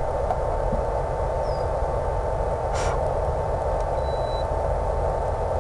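Steady static hiss with a constant thin hum, the noise of an analog FPV video receiver's audio channel.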